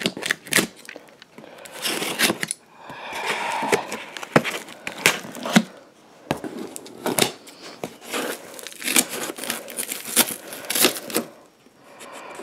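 A taped cardboard shipping box being opened by hand: packing tape tearing and crinkling and cardboard flaps rustling and scraping, with irregular sharp clicks and one longer stretch of rustling a few seconds in.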